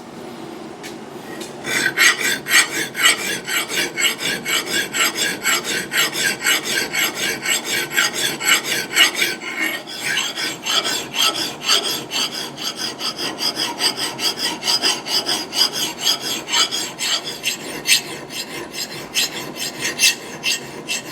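Flat lathe file being drawn across an axe's steel bit in rapid, even strokes, cutting smoothly and raising a wire burr along the edge. The strokes start about a second and a half in.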